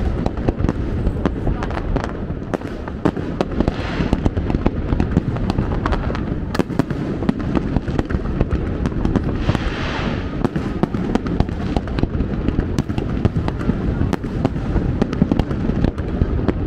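Fireworks display: a dense run of bangs and crackles over a continuous low rumble, with swells of crackling about four and ten seconds in.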